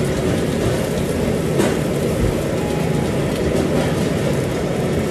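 Restaurant ventilation fan running: a steady low rushing noise that does not change.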